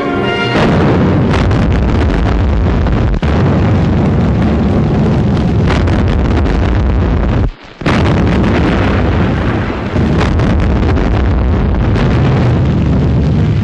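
Battle noise: a dense, continuous din of shell explosions and gunfire, dropping out for a moment about halfway through.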